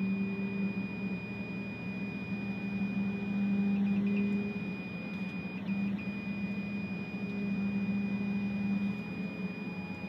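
Trimble GCS Flex grade-guidance beeper in an excavator cab, sounding a steady high tone that breaks into a few short beeps around the middle. Its beep pattern tells the operator where the bucket is against the set grade: slow beeps below grade, a flatline tone on grade, fast beeps above grade. Underneath is the excavator's engine and hydraulics running, its hum rising and falling as the bucket digs.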